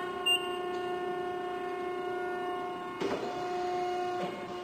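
Wysong PH60-96 hydraulic press brake's pump running with a steady whining hum. A short high beep comes about a quarter second in, and a brief knock about three seconds in.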